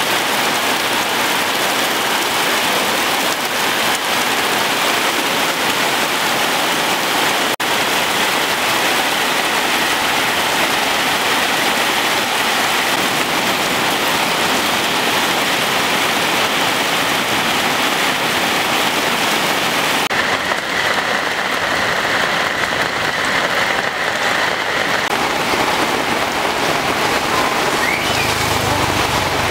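Heavy rain falling steadily, a dense even hiss of rain.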